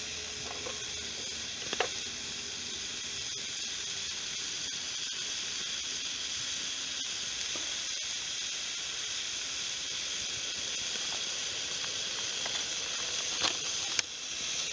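Steak sizzling in a pan over a wood fire, a steady hiss with a few sharp pops, the loudest near the end.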